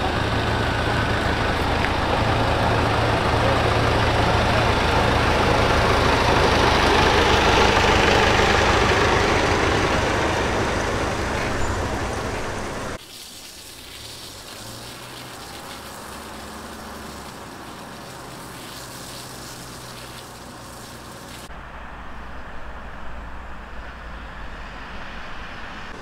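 Pest-control truck driving its high-pressure water sprayer: a steady engine hum under a loud rushing hiss that swells and then eases off. About thirteen seconds in, the sound cuts abruptly to a much quieter engine hum.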